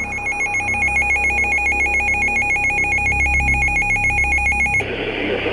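Electronic alert tone signalling an incoming weather warning: a rapid, even warble between two high pitches over a steady lower tone. It cuts off sharply near the end, giving way to radio hiss.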